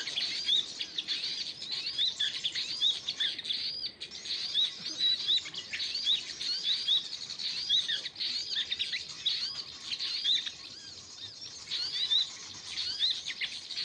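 Small birds chirping rapidly and repeatedly: short high-pitched chirps, several a second, overlapping throughout.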